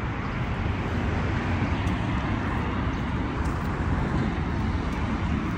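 Steady hum of road traffic, an even rumble without distinct events.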